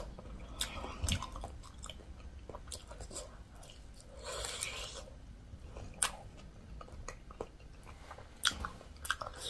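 Close-up mouth sounds of eating a saucy pork rib: biting and chewing, with scattered sharp wet clicks and a short breathy rush about four seconds in.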